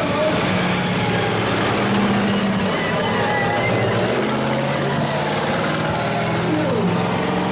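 Engines of demolition-derby pickup trucks running loudly, their pitch shifting up and down now and then, over the steady noise of a large crowd.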